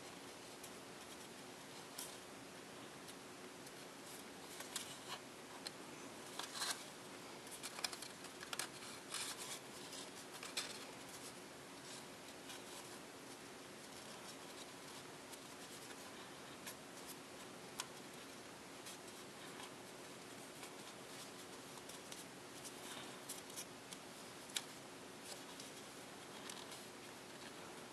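Paper crinkling and crackling as fingers fold and press creases into a strip of printed copy paper. The crackles are scattered, and most of them fall between about five and eleven seconds in. Under them runs a faint steady hum.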